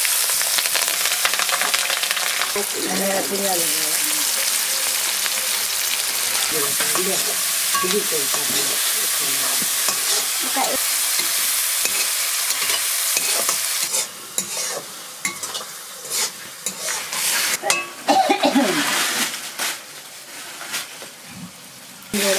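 Green chillies and sliced onions sizzling in hot oil in an iron kadai, stirred with a spatula. A dense, steady hiss for about the first half, then thinner and broken by scrapes and clicks of the spatula on the pan.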